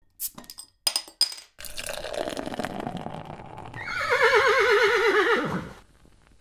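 A horse whinnying: after a few short bursts, a breathy sound swells about a second and a half in and builds into a loud, quavering neigh that cuts off near the end.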